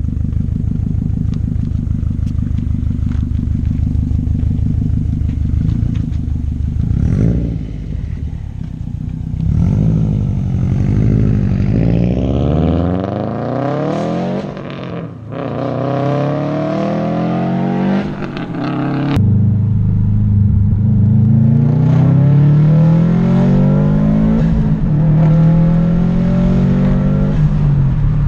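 Subaru WRX STI's turbocharged flat-four, fitted with a Tomei titanium exhaust and catless downpipe, running steadily and then accelerating hard. Its pitch climbs through the gears, dropping suddenly at shifts about halfway through and again a few seconds later.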